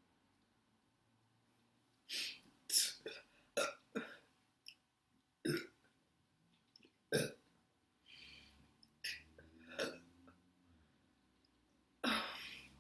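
A woman belching over and over, with gas from a large amount of cola. A string of short burps starts about two seconds in, and a longer one comes near the end.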